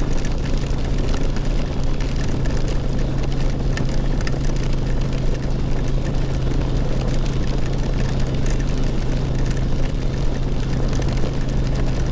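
Motorcycle engine running steadily while riding, under a wash of wind noise, with scattered sharp ticks of big raindrops striking.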